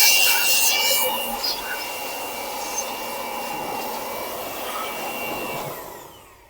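Electric air blower running with a steady high whine and rushing air; it drops in level after about a second and fades out near the end.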